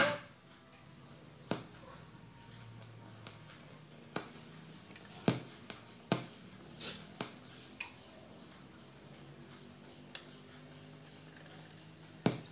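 About a dozen sharp clicks and light taps at irregular intervals, typical of tools and parts being handled, over a faint steady low hum.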